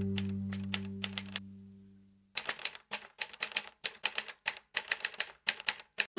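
Typewriter keystrokes used as a typing sound effect: sharp, irregular clacks, first over a low music chord that fades away within about two seconds, then after a brief pause a faster run of about five strikes a second.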